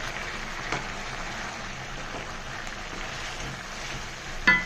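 Rice and vegetables simmering in their water in a pan, a steady bubbling hiss as the water cooks off. Near the end a spatula knocks sharply against the pan once, with a brief ring.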